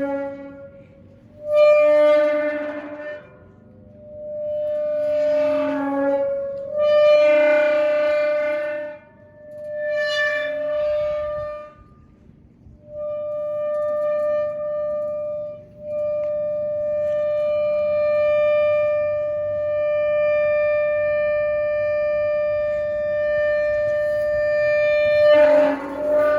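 Rusty metal gate hinge creaking as the gate is swung: a run of drawn-out, pitched squeals a couple of seconds each, then one long steady squeal lasting about nine seconds.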